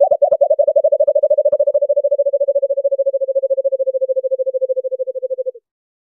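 Recorded call of a white-eared brown dove, played as a lure call: a run of low hooting notes that quickly speeds up into a fast, even trill, fading a little before it stops about five and a half seconds in.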